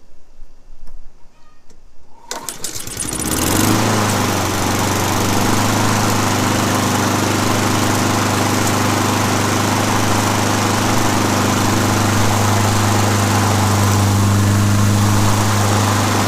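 Honda HRR216 lawn mower's single-cylinder GC160 engine starting on the first pull-start, after years of sitting and with its carburetor just reinstalled. It catches about two seconds in, picks up speed and then runs steadily.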